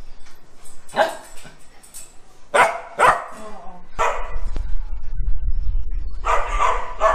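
Dog barking: single sharp barks about one, two and a half, three and four seconds in, then a longer run of barking near the end. A low rumble runs underneath from about four seconds in.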